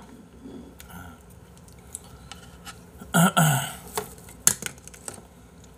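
Chopsticks clicking against the dishes a few times during a meal, with a loud, short throaty mouth noise from the eater about three seconds in.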